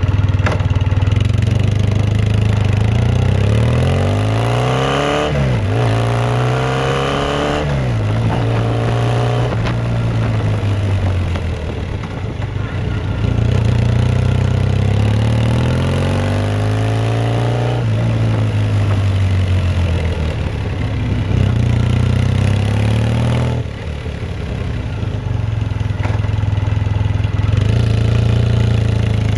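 Triumph Bonneville parallel-twin motorcycle engine idling through aftermarket Yamato Stainless stainless-steel mufflers with their silencer baffles fitted, revved up several times and dropping back to idle between.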